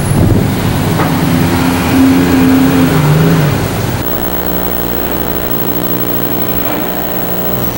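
City traffic noise and a tour boat's engine, then, from about four seconds in, the steady drone of a jet aircraft flying overhead, a dense hum of many even tones.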